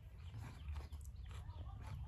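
Close mouth sounds of a person chewing raw prawns, with small crunching clicks, over a steady low rumble.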